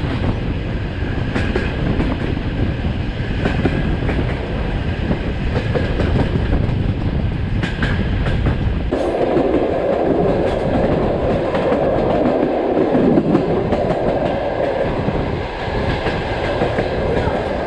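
Passenger train carriage running along the track, heard from an open window alongside it: a steady rumble and rush with wheels clacking over the rail joints. About halfway through the sound turns harsher, with a louder mid-pitched rush.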